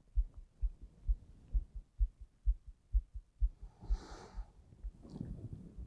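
Heartbeat sound effect: a low lub-dub thumping a little over twice a second. A heavy exhaled breath stands out about four seconds in.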